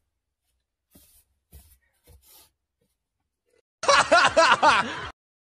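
A few faint short sounds, then about a second of people laughing starting about four seconds in.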